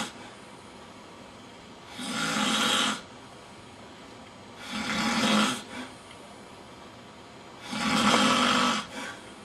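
A man snoring: three snores about three seconds apart, each lasting about a second, with a short faint catch just after the second and third.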